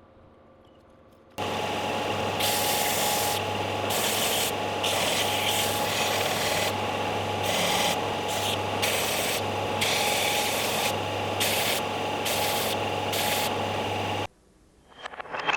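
Electric sander running on oak, its hiss swelling and easing in strokes over a steady motor hum. It sands away the thin bottom layer of a CNC-milled board to free the small cut pieces. It starts abruptly about a second in and cuts off near the end.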